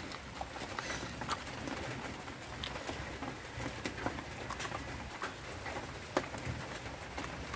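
Small screwdriver driving screws into the plastic chassis of a toy car: light, scattered clicks and scrapes of metal on plastic, over a low steady background sound.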